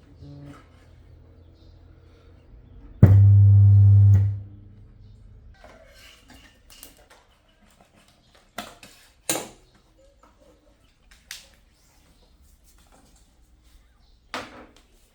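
A loud low hum from a speaker starts abruptly about three seconds in, lasts about a second and then fades out. Scattered light clicks and knocks follow.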